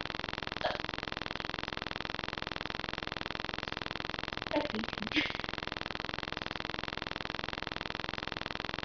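A short, low burp about four and a half seconds in, followed at once by a brief sharper sound, over a steady electrical buzz on the recording.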